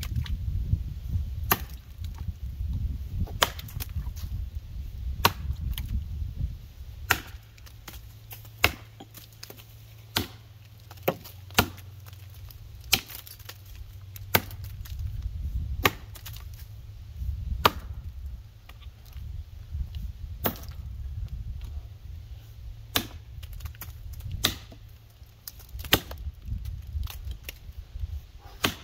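Repeated axe strikes into a dry red maple block from a 6-pound Council Tool FE-6 felling axe, one sharp chop about every second and a half.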